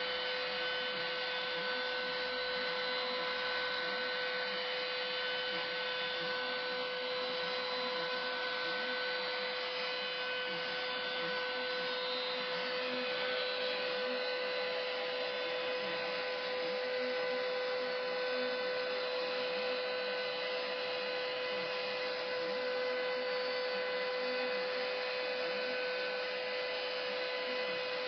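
Sainsmart Genmitsu 4040-Pro desktop CNC router's spindle running with a steady whine as it cuts into a scrap of wood, over the steady rush of a shop vac drawing air through the brush dust shoe.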